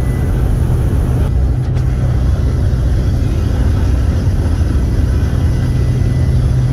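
Small propeller plane's engine running with a loud, steady drone, heard from inside the cabin.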